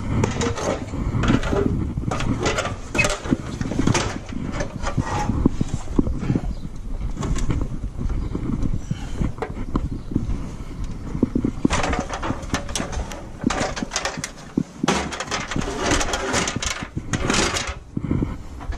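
Handling noise from climbing an aluminium ladder: a low rumble on a worn camera's microphone, scattered knocks and clatter against the ladder, and rustling that grows louder in stretches from about twelve seconds in.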